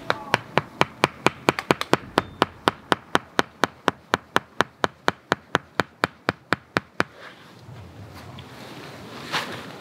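A hatchet knocking a hand-carved wooden tent peg into the ground: a quick, even run of about four knocks a second that stops about seven seconds in, followed by a brief rustle near the end.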